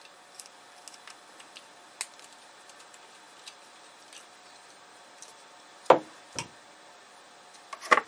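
Light clicks and ticks of small screws and a Torx screwdriver being handled, as drive mounting screws are taken out and moved to a new drive frame. Two sharper knocks come about six seconds in and another near the end.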